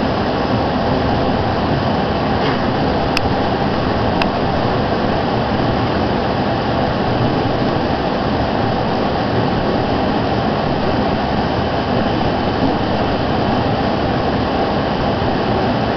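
Steady, loud whooshing of cooling fans and air handling from running electronic equipment, with a couple of faint clicks a few seconds in.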